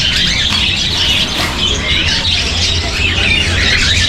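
Many caged small birds chirping and squawking together, a dense overlapping chorus of short high calls, over a steady low hum.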